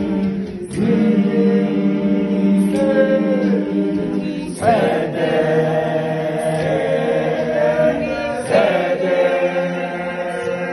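Group of schoolboys singing a cappella in harmony: a slow choral song with several voice parts held together in long notes. New phrases come in about a second in, near the middle and about three-quarters through.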